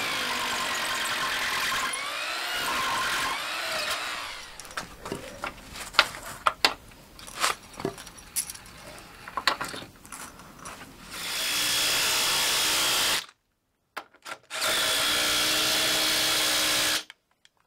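Power drill fixing steel angle brackets to a concrete floor with 10mm fixings. It runs for a few seconds, its pitch rising and falling as it speeds up and slows. Then comes a stretch of sharp clicks and knocks, then two more steady runs that each cut off suddenly.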